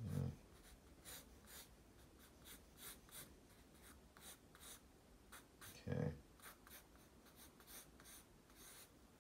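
Pencil sketching on paper: faint, scratchy graphite strokes in quick runs of a few strokes a second. There are two brief, louder low sounds, one at the very start and one about six seconds in.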